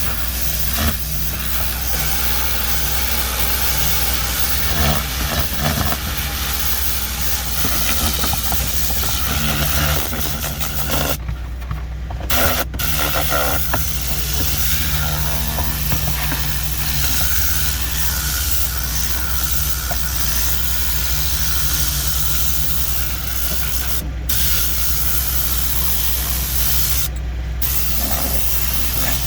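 Compressed air blasting steadily from an air-powered cleaning gun, with a motor's steady hum underneath. The air cuts off briefly three times as the trigger is released, while the hum carries on.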